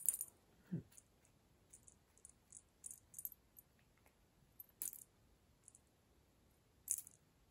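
Faint, irregular light clicks and ticks from a cat toy being batted about on a tile floor, with a few louder clicks near the start, about five seconds in and about seven seconds in.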